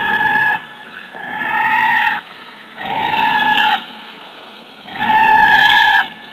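Giraffe calls: four calls, each about a second long and held at a steady pitch, with short pauses between them.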